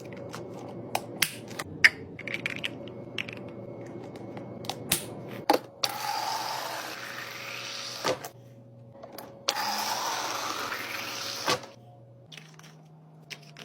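Restocking a mini fridge: items and packaging are set down with a string of sharp clicks and taps. Then liquid is poured into a container twice, each pour about two seconds long, its pitch rising as the container fills.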